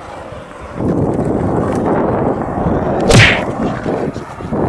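Skateboard wheels rolling over wet concrete, a rumble that starts about a second in, with one sharp clack of the board striking the concrete about three seconds in.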